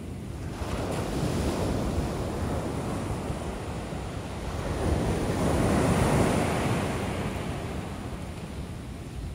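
Ocean shore break: small waves breaking and washing up the beach, a surge of surf that swells to its loudest about halfway through and then eases off.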